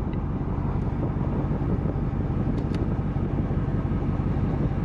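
Vehicle engine idling, a steady low rumble, with two faint clicks about two and a half seconds in.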